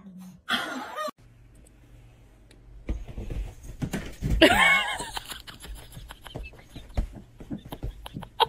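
Light clicks and rustling of a cat's claws scrabbling on a wall and bed sheet as it climbs, with a person laughing loudly about halfway through and a short laugh near the start.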